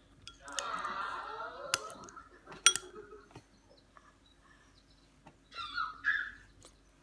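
A sleepy toddler's brief wordless vocal sounds, about a second in and again near the end, with a couple of sharp clicks of a metal feeding spoon in between.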